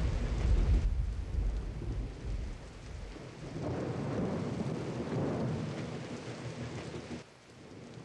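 Thunderstorm sound effect: a rumble of thunder over steady rain that fades over the first few seconds, then a second roll of thunder swells up. The rumble cuts off suddenly near the end, leaving only faint rain.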